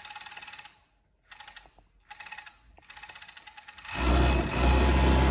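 JUKI MO-6843S six-thread overlock safety-stitch machine sewing cotton, first in a fast, even stitching rhythm, then in a few short stop-start bursts. About four seconds in it runs at full speed, much louder, with a deep hum from the drive.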